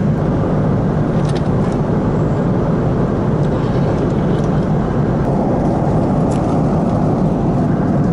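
Steady rushing cabin noise of an airliner in flight, from the jet engines and the airflow, with a few faint clicks over it.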